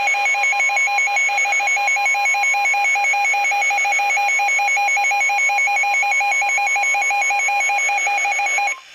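NOAA Weather Radio alert: a loud, steady warning alarm tone near 1 kHz (the 1050 Hz weather-radio alert tone) sounds together with a fast-warbling two-pitch electronic alarm. Both cut off abruptly near the end, ahead of a Flash Flood Warning.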